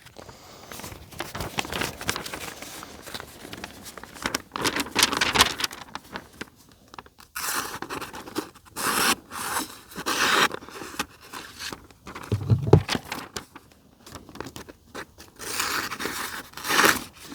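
A sheet of thin catalog paper rustling and scraping in irregular strokes as it is handled to test a freshly sharpened hatchet edge. There is a dull bump about three-quarters of the way through.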